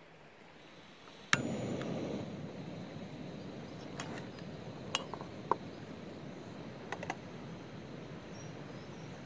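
Campingaz gas stove lit with a sharp click, its burner then hissing steadily. A few light metallic clinks of cookware follow.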